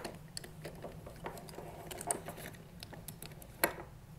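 Clicks and light knocks from a Power Rangers Legacy Collection Dragonzord toy being handled and its movable parts shifted, with one louder click about three and a half seconds in.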